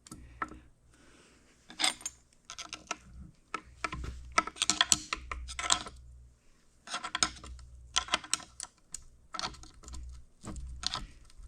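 Metal gearbox parts of an Oliver 64 grain drill transmission being handled: irregular clusters of sharp metallic clicks and clatter as a shaft and its gears are worked loose.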